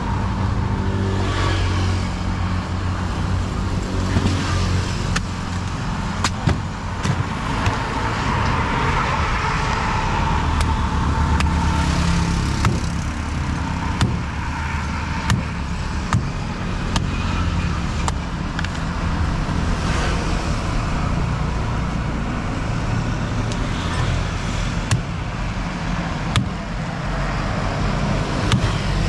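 Road traffic running steadily, with irregular sharp knocks from a large knife chopping into palmyra palm fruits.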